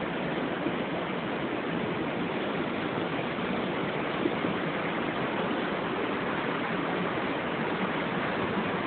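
Creek water rushing over rocks: a steady rush.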